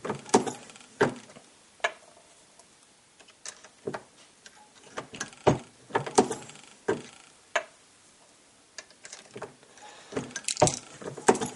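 Irregular sharp clicks and clunks of brass .223 cases handled on a wooden bench and run through an RCBS single-stage reloading press, being sized and deprimed one after another.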